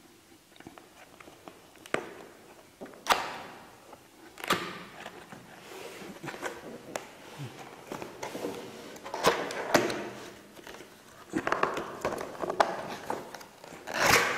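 Cardboard product box being worked open by hand on a wooden table: scattered sharp clicks and taps, with short stretches of scraping and rustling cardboard. The loudest scrape comes near the end as the lid slides off.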